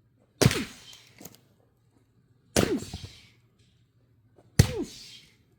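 Axe blows splitting oak firewood: three sharp cracks about two seconds apart, each with a brief falling ring as the wood gives.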